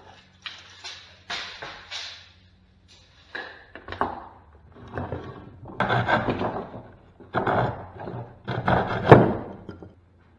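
Hand saw cutting through a bamboo stake in a series of short back-and-forth strokes, grouped into bursts, with a sharp knock about nine seconds in.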